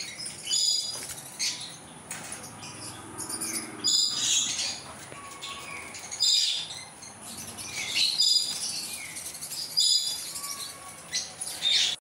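Fischer's lovebirds chirping: short, shrill, high-pitched calls that come again every second or two.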